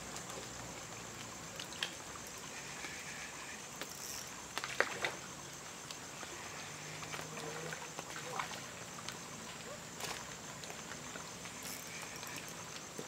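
Faint outdoor ambience of a steady, high-pitched insect drone, with a few brief soft knocks and taps, the loudest about five seconds in.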